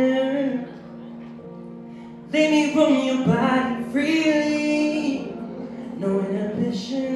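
Male singer singing live into a microphone over a backing track: a held note, then after about two seconds of quieter backing, a loud run of sung phrases that bend up and down.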